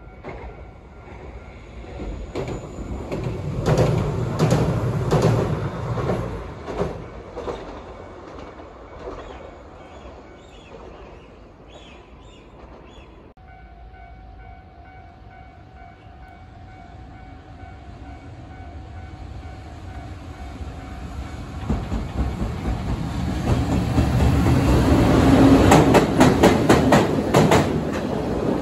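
A train passing with rhythmic wheel clicks over the rail joints. After an abrupt cut, a second train approaches and passes, loudest near the end with fast clicks.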